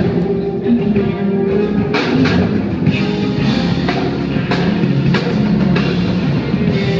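Rock music with guitar and drum kit; the drums come in about two seconds in, over held guitar notes.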